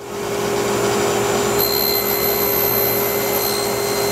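Table saw running steadily, its motor and spinning blade giving a steady hum, as wood is fed through the blade. A higher whine joins about one and a half seconds in.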